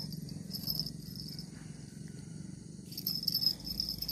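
Insects chirring in a high, pulsing drone that dips in the middle and swells again near the end, over a low, fast-pulsed hum.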